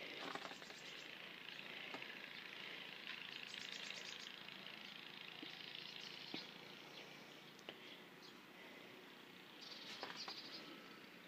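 Faint soft crunching of deep fresh snow in short bursts, about a second in, around four seconds in and again near the end, as a Newfoundland puppy bounds through it, over a quiet outdoor hiss.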